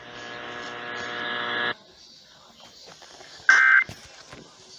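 A harsh, buzzy electronic tone for nearly two seconds, cutting off abruptly. After a stretch of faint hiss comes a short screeching burst of Emergency Alert System SAME digital data near the end: the first of three short bursts that form the end-of-message code after a weather warning.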